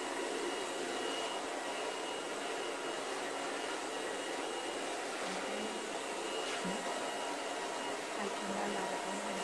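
Handheld hair dryer running steadily, blowing air through short hair as it is brushed.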